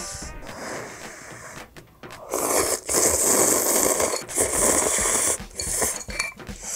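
A person slurping instant cup ramen noodles: a few long, loud slurps begin about two seconds in, separated by short breaths.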